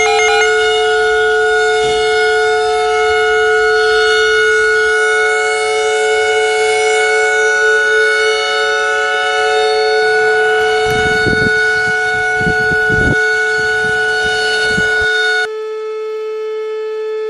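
Loud, steady electronic alert tone made of several pitches held together, sounding like a siren. Its mix of tones shifts about five and ten seconds in, and near the end the higher part drops away and it gets a little quieter.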